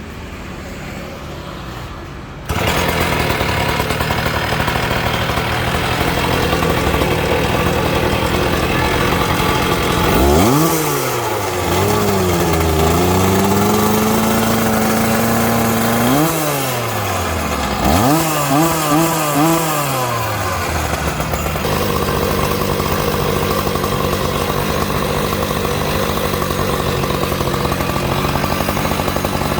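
Single-cylinder two-stroke 64 cc engine of a petrol cut-off saw running loud, revved up about ten seconds in and held high for a few seconds, then blipped in four quick revs before settling back to a steady run.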